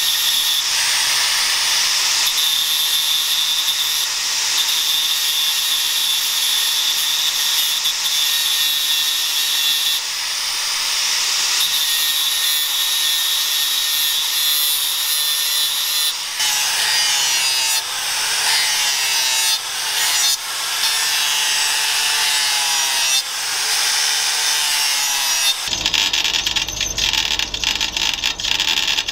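Angle grinder with a sanding disc grinding the flat of a leaf-spring steel knife blade: a steady high grinding hiss that turns uneven about halfway through as the disc is worked along the blade. Near the end it gives way to a drill press boring into the steel tang.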